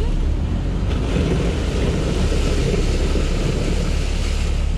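Sherp amphibious off-road vehicle's diesel engine droning steadily under a rushing, splashing noise of big low-pressure tyres churning through water and broken river ice. The rushing swells about a second in and eases near the end.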